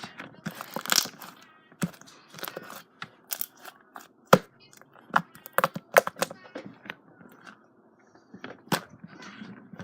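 Slime being squeezed, poked and stretched by hand, giving irregular wet pops, clicks and crackles as air pockets burst.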